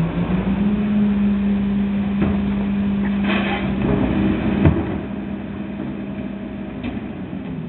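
Garbage truck's diesel engine speeding up to a higher steady pitch, as it does to drive the hydraulic packer, then easing back after about five seconds. A few knocks and a short clatter sound over it, and there is a sharp bang about four and a half seconds in.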